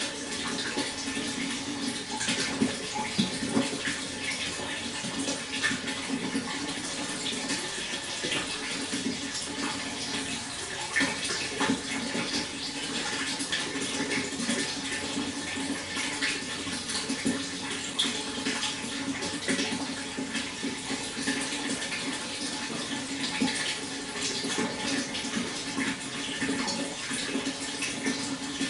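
Water flowing steadily, with a constant rush dotted with many small splashes and trickles.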